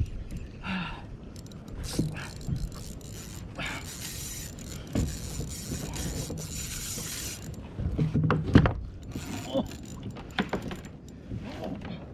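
Spinning reel and rod being worked while fighting a hooked fish from a plastic kayak: scattered clicks, rattles and knocks of tackle against the hull, with a few seconds of hiss near the middle and a louder knock about eight seconds in.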